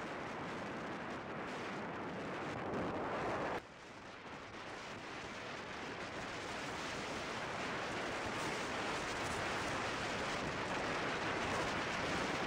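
Wind rushing and buffeting over the microphone of a helmet-mounted camera on a motorcycle at highway speed. It cuts off abruptly about three and a half seconds in, then builds steadily louder again.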